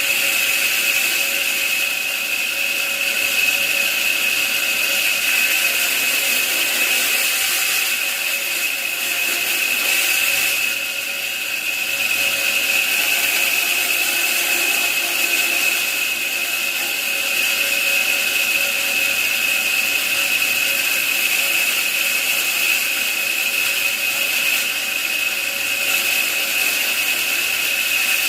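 A woodworking power tool running steadily with a high whine over a bright hiss, easing slightly about eleven seconds in.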